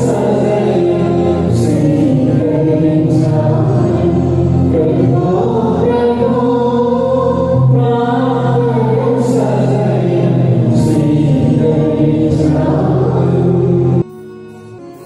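Church choir singing a Malayalam hymn with keyboard accompaniment, with long held low notes under the voices. About 14 seconds in the singing cuts off suddenly, leaving softer keyboard music.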